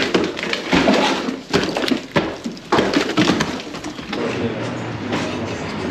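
Demolition work: repeated knocks, scrapes and clatter of flood-damaged flooring and debris being broken out and moved, giving way about four seconds in to a steadier noise with a low hum.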